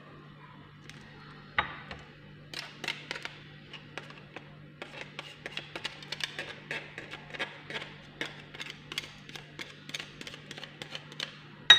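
Red onion being grated on a small handheld grater with a metal grating plate over a glass bowl: a run of quick, irregular ticks and taps, several a second, starting about two seconds in, over a steady low hum.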